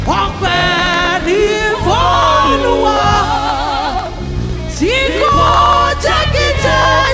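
Live gospel worship music: drawn-out sung notes with wide vibrato over a sustained low accompaniment.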